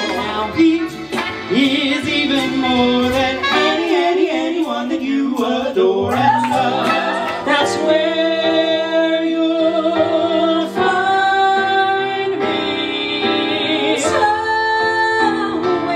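Two men singing a duet with musical accompaniment, holding long notes with vibrato through the second half.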